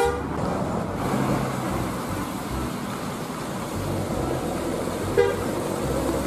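Coach horn ending just after the start and sounding again, short and loud, about five seconds in, over the steady running of a bus engine and road noise.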